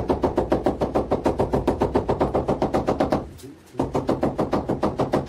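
A small hammer tapping rapidly on a marble floor slab, about nine light knocks a second, to bed the slab level into its mortar. The tapping stops for about half a second roughly three seconds in, then starts again.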